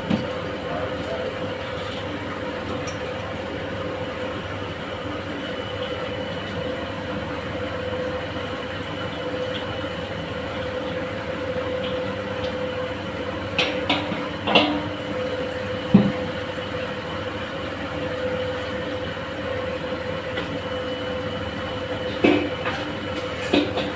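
Large pot of biryani rice boiling hard over a gas burner: a steady rushing roar with a faint constant hum. A few short metal clanks from the pot or utensils come a little past the middle and again near the end.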